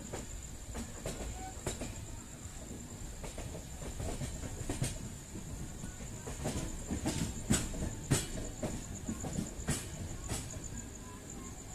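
Passenger train wheels rolling over the points and crossings of a junction approach: a low rumble broken by irregular sharp clacks as the wheels cross rail gaps, with a thin steady high whine underneath.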